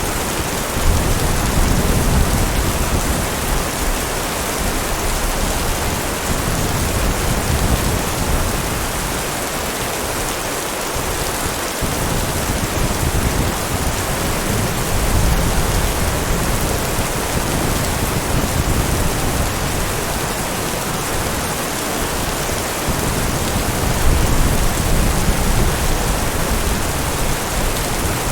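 Steady heavy rain, with low thunder rumbles swelling and fading a few times: about a second in, midway and near the end.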